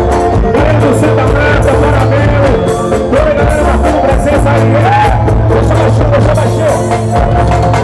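Live band playing loud amplified music, a singer's voice over electric guitar and a steady beat.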